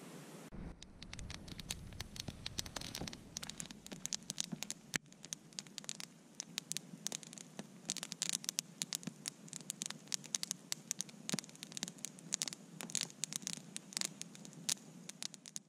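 Campfire of logs and sticks crackling, with many irregular sharp snaps.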